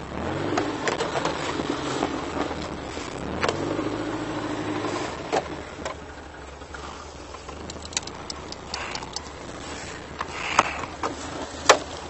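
Off-road vehicle's engine running as it drives slowly over a rough forest track, louder for the first five seconds and then easing off, with knocks and rattles from the cab. Near the end come sharp clicks from the door handle and latch as the driver's door is opened.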